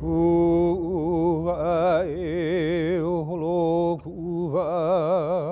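A man's voice chanting, holding long notes with a strong, fast wavering vibrato, with a short break about four seconds in.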